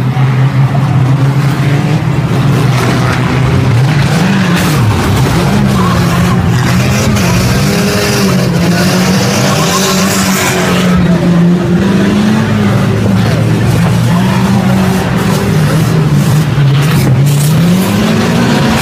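Several banger-racing cars' engines running hard and revving up and down over one another. Tyres spin and hiss on the wet track from about seven seconds in to about eleven, and a few sharp knocks come near the end as cars bump together.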